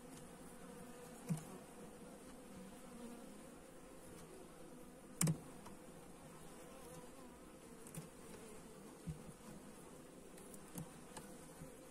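Honeybees humming steadily over an open hive, with a few short wooden knocks as the hive frames are gripped and slid along the box; the loudest knock comes about five seconds in.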